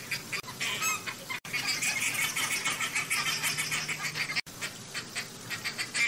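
A flock of flamingos calling together: a dense, continuous chatter of many overlapping honking calls, broken by two very short gaps, about a second and a half in and about four and a half seconds in.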